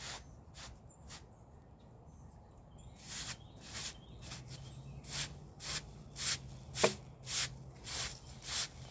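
A broom's bristles swept over woven landscape fabric (weed barrier) in short strokes, a few at first, then about two a second from about three seconds in. One louder, sharper knock comes about two-thirds of the way through.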